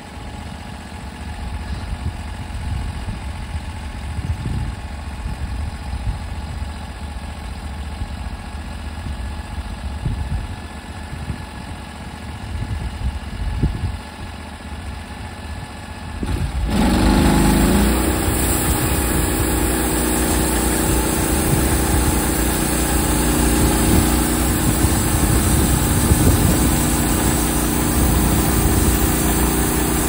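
Gasoline engine of a Norwood HD38 portable bandsaw mill idling, then throttled up sharply about halfway through, its pitch rising quickly before it settles into a loud, steady run at cutting speed.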